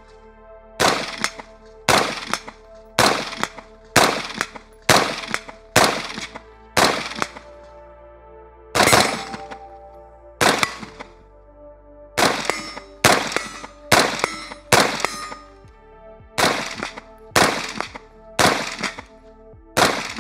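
Adams Arms P3 AR-15, a short-stroke piston rifle, fired semi-automatically in quick strings, roughly one to two shots a second, about twenty shots with a pause of about two seconds near the middle. Each shot is followed by a short echoing tail.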